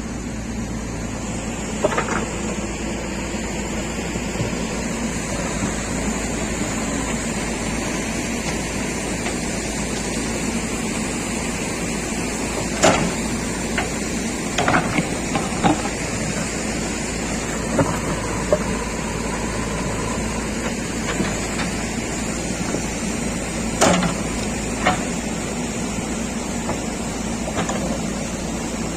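JCB 3DX backhoe loader's diesel engine running steadily, with a handful of sharp metallic knocks and clanks scattered through it.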